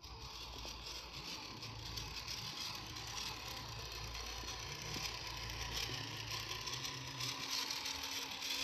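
Electric motor and gearbox of a 1/10-scale RC Jeep Rubicon crawler whirring steadily as it crawls over rocky dirt.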